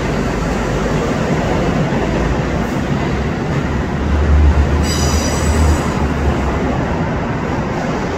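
MTA track geometry car running along elevated steel track, a steady heavy rolling noise of wheels on rail. About five seconds in, a high wheel squeal sounds for about a second as it takes the curve.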